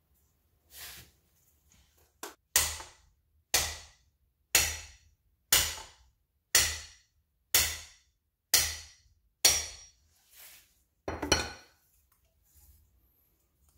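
Hammer blows on a 36 mm socket and extension used as a seal driver, tapping a new driver-side axle seal into a Honda L3 transmission case to seat it flush. A steady run of about eight blows, one a second, then one more after a short pause.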